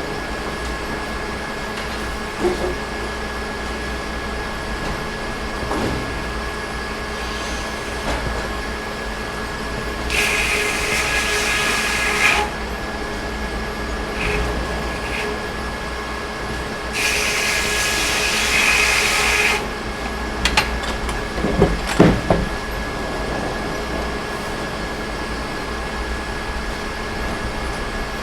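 Sawmill machinery running with a steady hum, broken twice by a couple of seconds of loud hissing, followed by a cluster of sharp knocks about three quarters of the way through.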